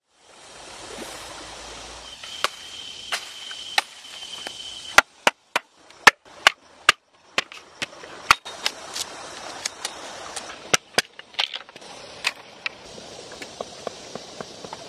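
Sharp cracks and knocks of green bamboo being struck and split into strips, in irregular strokes with a quick run of blows in the middle, over a steady background hiss. A steady high-pitched tone sounds for a couple of seconds near the start.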